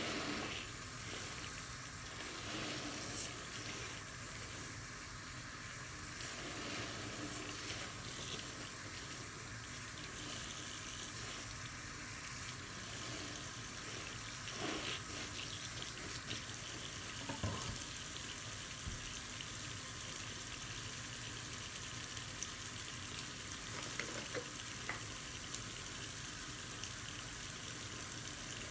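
Tap water running into a sink full of soapy foam while a soapy sponge is squeezed and rinsed under the stream: steady water noise with a few soft squelches.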